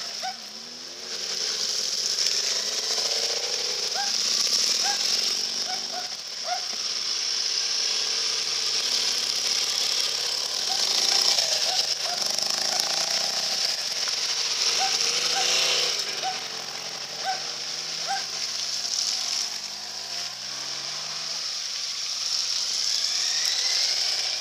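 Motorcycles riding one after another through a shallow ford, engines running and rising in pitch as they pull through, with water splashing around the wheels.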